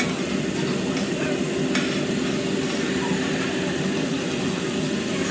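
Vegetables and noodles sizzling on a hot teppanyaki griddle over a steady low hum, with one sharp click about two seconds in.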